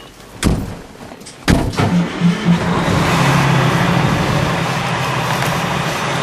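Inside a fire engine's cab: two heavy thumps, about half a second and a second and a half in, then the pumper's diesel engine and road noise come up loud and run steadily as the truck pulls out onto the road.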